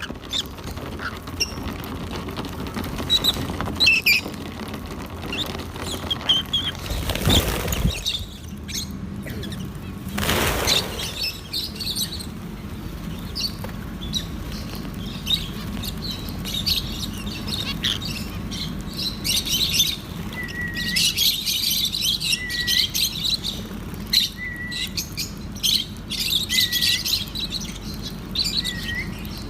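Lovebirds chirping, with rapid high-pitched twittering in bursts. Two brief bursts of rustling noise come about a quarter and a third of the way in. In the second half a short, flat call repeats every second or two.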